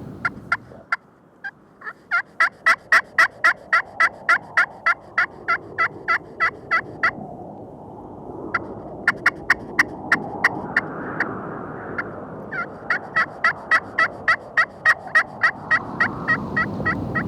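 Hunter's turkey call sounding runs of hen yelps: sharp, evenly spaced notes about four a second, in four series broken by short pauses, calling to a gobbler.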